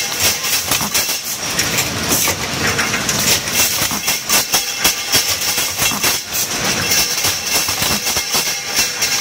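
Automatic metal broom-handle assembly machine running: a dense, irregular clatter of metal tubes and mechanism knocks over a steady high hiss.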